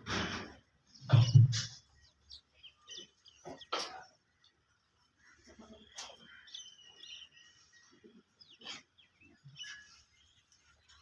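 Farmyard animal calls: two loud calls in the first two seconds, then scattered bird chirps and short whistling glides.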